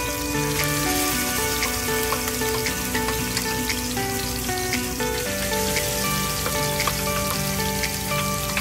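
Squid balls shallow-frying in oil in a stainless steel frying pan: a steady sizzle with scattered crackles as more squid paste goes into the hot oil. Background music with held notes plays along.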